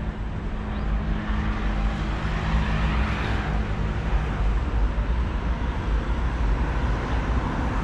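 Street traffic: a steady rumble of vehicle engines, with one vehicle passing about three seconds in and an engine hum that fades about four seconds in.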